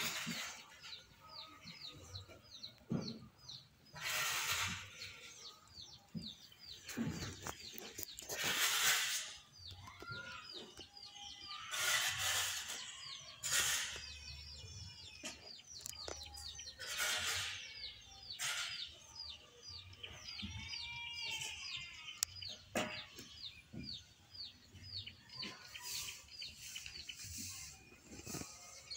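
Small birds chirping in a fast, high, repeated pattern, several chirps a second, with a few lower calls in between. Several louder bursts of rustling noise cut in, the loudest about a third of the way in.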